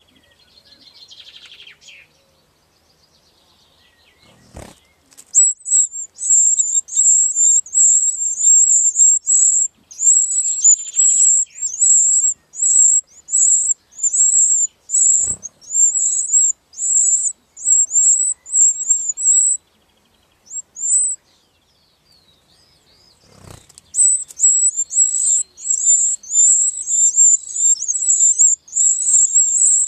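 Wren nestlings giving very high-pitched begging calls in rapid bursts, about two a second, as a parent comes to the nest to feed them; the calls stop for a few seconds about two-thirds of the way through, then start again. Three soft thumps come about five seconds in, midway, and just before the calls start again.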